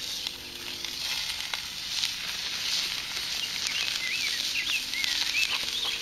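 Diced onions and bell peppers sizzling in oil in a cast iron skillet over a campfire, with a few sharp pops. From about halfway through, a bird chirps a string of short rising-and-falling notes.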